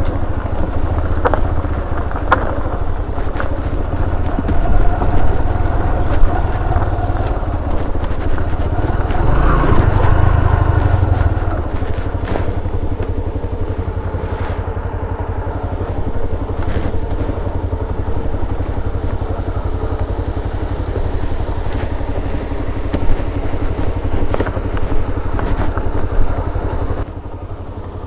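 Motorcycle engine running at low revs on a steep rocky descent, with occasional knocks from the rough ground. The revs rise briefly about ten seconds in.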